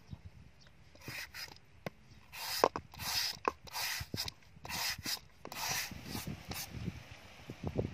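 Handheld julienne shredder rasping down a peeled green papaya in repeated strokes, about two a second, fainter for the first second or so.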